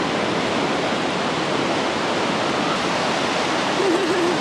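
Surf washing onto a sandy beach: a steady rushing noise, with a short wavering whine near the end.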